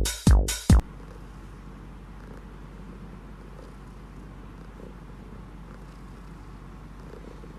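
A cat purring steadily. Before it, in the first second, a few loud beats of electronic music stop abruptly.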